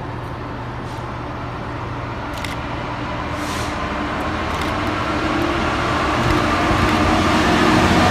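Class 66 diesel freight locomotive approaching. Its steady low engine drone and the running noise grow gradually louder.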